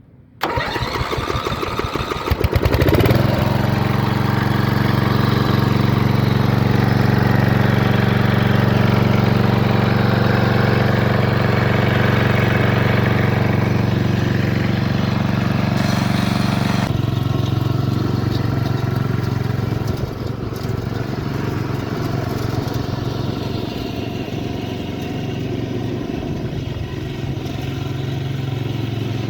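Dixon zero-turn riding lawnmower engine cranked by its starter for about two seconds, then catching and running steadily. About seventeen seconds in its note changes and it gets a little quieter, and drops slightly again a few seconds later.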